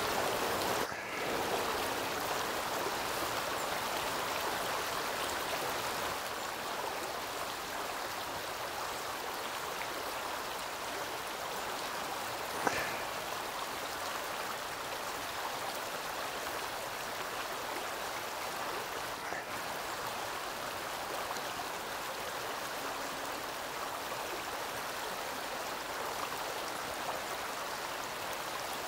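Flowing stream water rushing steadily over shallows, with one short sharp click about halfway through.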